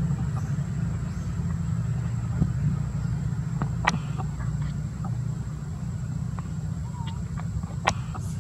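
A steady low rumble, with a few sharp clicks, the loudest about four and eight seconds in.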